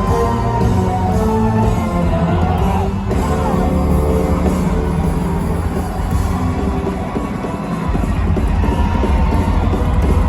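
Live rock band playing loudly, with sung vocals and a crowd yelling along.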